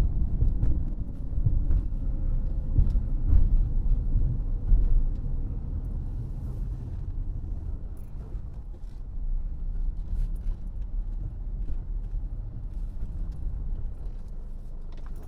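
Car driving: a steady low road and engine rumble, quieter after about five seconds.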